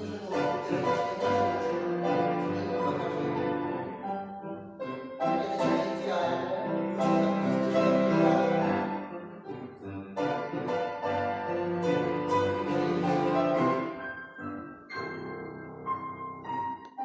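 Classical piano music playing in phrases, with short breaks between them.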